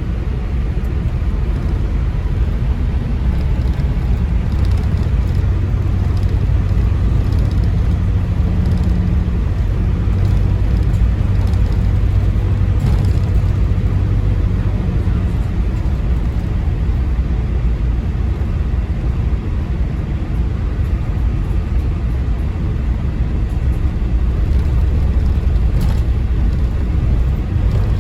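Diesel engine and drivetrain of a single-deck service bus (Team Pennine 194) under way, a steady low drone with a turbocharger whistle over it.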